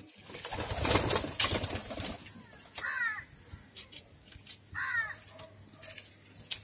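Crow cawing twice, about three and five seconds in, each a short harsh call. Before that, a loud rush of noise lasts about two seconds.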